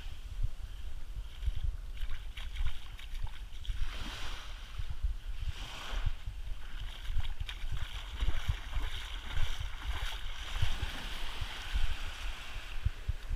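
Wind buffeting the microphone in uneven gusts, over the soft hiss of small waves washing up onto a sand beach, the wash swelling now and then.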